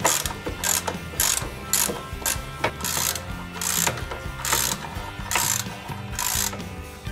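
Hand ratchet wrench clicking through a run of back-and-forth strokes, about one every half second, tightening the master cylinder's mounting nuts.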